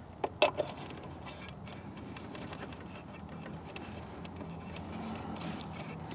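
Two sharp plastic clicks about half a second in, then faint scattered ticks over a low steady hum: hands working a tail-light bulb socket into the lamp housing, still not seating.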